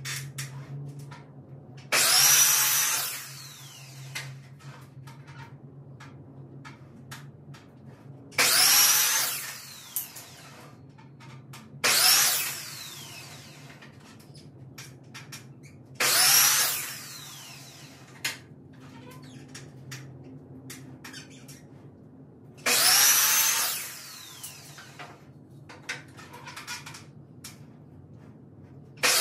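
Power drill run in five short bursts of about a second each, its motor whine rising and falling each time, as when driving screws. Light clicks and knocks of handling come in between.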